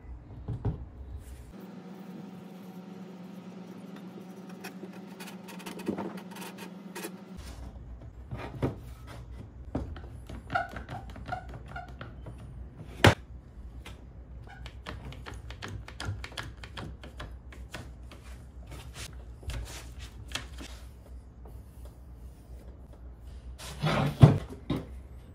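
Scattered taps and knocks of wooden chair parts being handled, set down and pressed together on a workbench during glue-up, with a louder cluster of knocks near the end. A steady low hum runs through the first several seconds.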